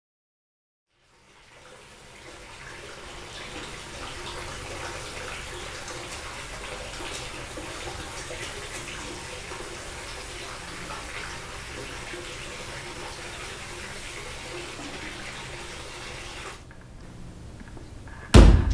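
Water running from a tap, a steady splashing hiss that fades in after about a second and stops abruptly a couple of seconds before the end. Then a single loud chopping thud.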